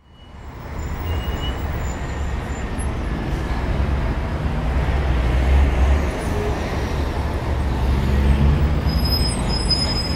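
Steady low rumble with a hiss over it, fading in over the first second and holding at a constant level.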